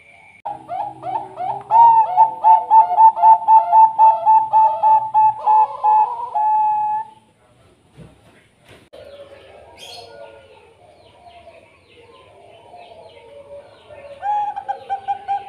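Zebra dove (Bangkok perkutut) song: a fast run of short, evenly repeated coos for about six seconds. After a pause come quieter, looser calls, and a second run of coos starts near the end.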